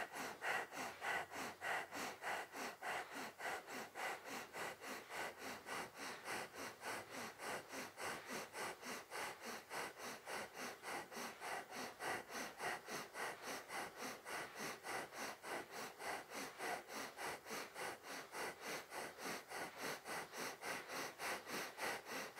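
Breath of fire: rapid, forceful breathing through the nose in a quick, even rhythm of short breaths, each exhale pumped out by the navel and diaphragm.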